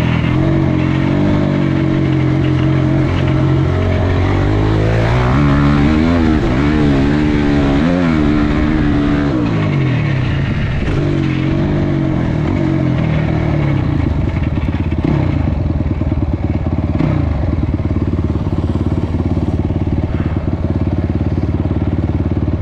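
Honda CRF250X dirt bike's single-cylinder four-stroke engine running, its pitch swinging up and down repeatedly for several seconds as the throttle is worked, then settling about halfway through into a steady idle.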